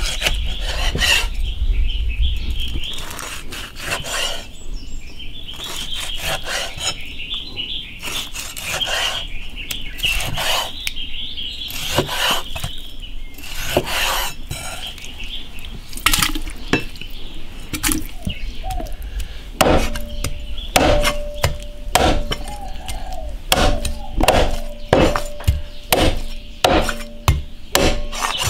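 A cleaver cutting through deep-fried, crispy-skinned pork belly on a wooden chopping block: crunching cuts and knocks of the blade on the board. In the last third the strokes turn into quicker, regular chopping, about two a second, as the cleaver chops raw pork.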